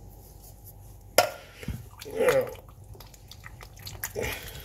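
Canned chopped tomatoes plopping and squelching as they slide out of the tin into a casserole pot, with a sharp knock about a second in.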